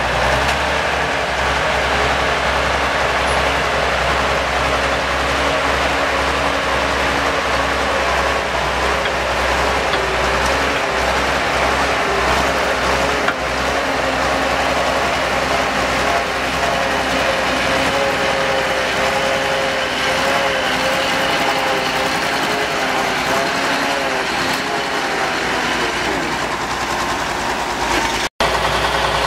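TT-4 tracked logging tractor's six-cylinder diesel running as the tractor drives, with the clatter of its steel tracks; the engine note wavers up and down in the second half. The sound breaks off for an instant near the end.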